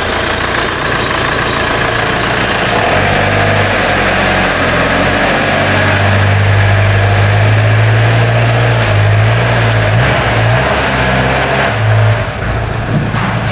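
Fiat Ducato camper's turbo-diesel engine running at low speed as the van is driven slowly onto the dyno rollers. Its low drone holds steady, rises a little in pitch through the middle and falls back near the end.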